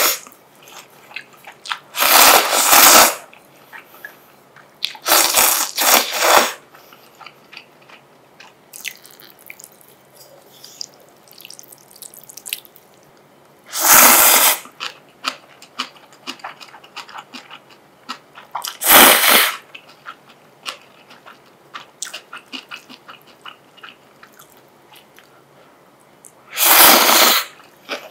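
Shin Ramyun instant noodles being slurped from a bowl: a loud slurp lasting about a second every few seconds, about five in all, with wet chewing and small mouth clicks between.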